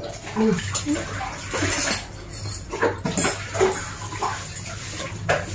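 Clatter of a meal on a tiled floor: plates and bowls clinking, tapping and scraping in quick, irregular knocks.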